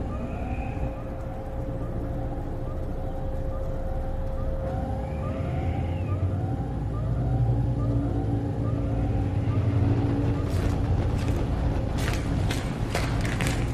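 Fire engine siren repeating a quick rising-and-falling whoop, about three every two seconds, over a steady low engine rumble. A run of sharp clicks and knocks starts about ten seconds in.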